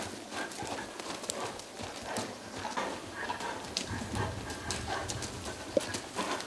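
A ridden horse's hoofbeats, muffled on the sand footing of an indoor arena, with faint irregular thuds as it moves on.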